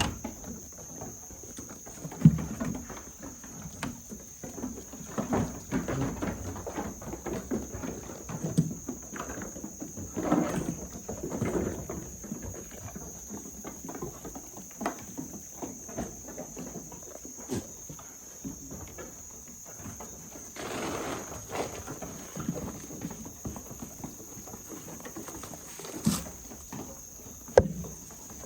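Goats moving about the farm: scattered hoof steps and knocks at irregular intervals, with a steady high-pitched hiss underneath.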